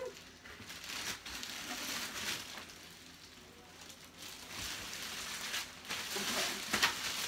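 Plastic wrap crinkling and rustling in irregular crackly bursts as a wrapped light-bulb vanity mirror is handled and lifted.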